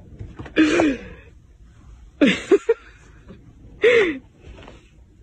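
Three short, breathy vocal cries about a second and a half apart, each with a quick bend in pitch.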